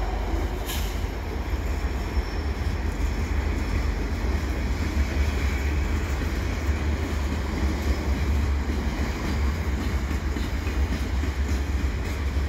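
Freight train of heavy flatcars rolling slowly past, a steady rumble of wheels on rail with a single brief click about a second in.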